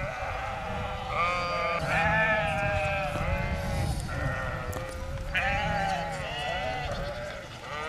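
A large flock of sheep bleating, many calls overlapping and wavering in pitch, with a short lull near the middle.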